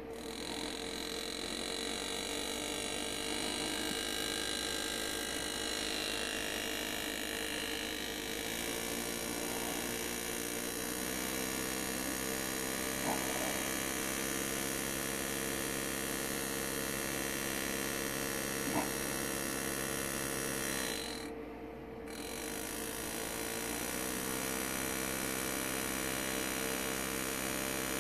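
Power-assisted engraving handpiece buzzing steadily as its graver cuts into a pewter chalice. Its pitch shifts a few times and it cuts out briefly about three-quarters of the way through before starting again.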